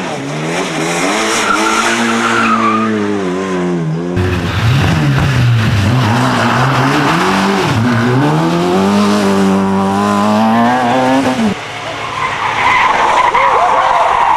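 Competition car engine revving hard, its pitch climbing and dropping with gear changes and lifts. Near the end tyres squeal as the car slides.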